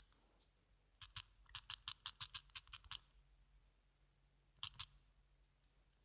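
Typing a message: a quick run of about a dozen sharp key taps, a pause, then three more taps.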